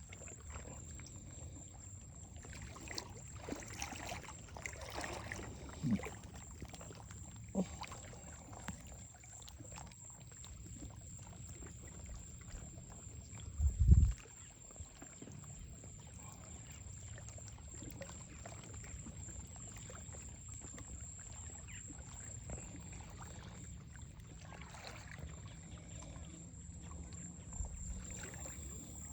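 Faint shoreline water ambience over a steady low rumble, with a thin steady high tone throughout. A few soft clicks occur, and one louder thump about fourteen seconds in.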